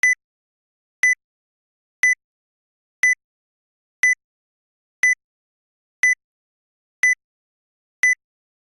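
Countdown timer sound effect: a short, high electronic beep once every second, nine times, with silence between.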